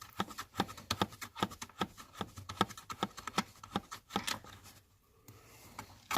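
Ratchet wrench clicking in quick runs as a seat-mounting bolt is backed out, stopping about four seconds in, with one more click near the end.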